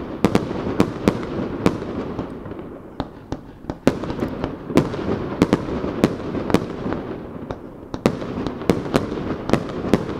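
Aerial fireworks shells bursting in rapid, uneven succession, about two or three sharp bangs a second, over a continuous echoing rumble. There are short lulls about three and eight seconds in.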